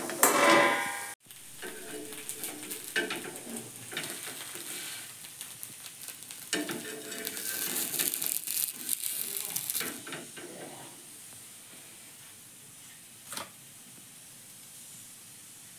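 Ragi neer dosa sizzling on a hot nonstick tawa. A steel lid clatters at the start, and then a metal spatula scrapes and lifts the dosa, loudest about seven to ten seconds in. The sizzle dies down after that, with one sharp click near the end.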